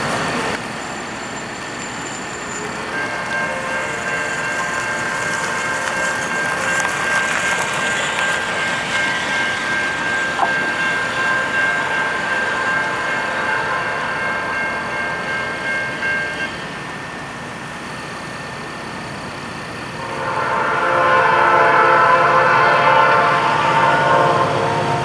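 Horn of an approaching Norfolk Southern SD70 diesel locomotive blowing for a grade crossing. A long steady chord is held for about thirteen seconds and stops. After a short gap a louder, fuller blast starts as the locomotive draws nearer.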